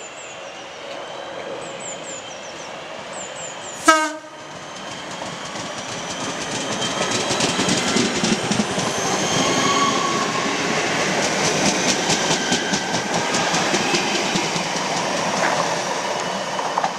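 A train horn gives one short, loud blast about four seconds in. A train then passes at speed, its wheels clattering rhythmically over the rail joints and growing louder as it comes through.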